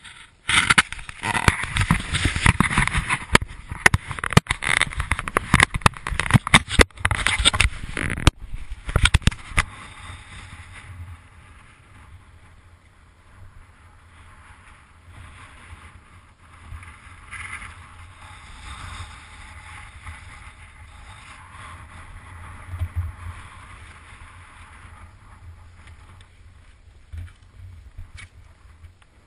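Strong wind buffeting the camera microphone in loud, ragged gusts, starting suddenly about half a second in and easing after about nine seconds to a quieter, steady rush.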